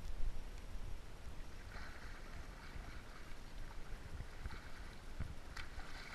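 River water splashing and lapping around inflatable inner tubes as a swimmer thrashes and kicks to climb onto a tube, the splashing picking up near the end, over a low irregular rumble.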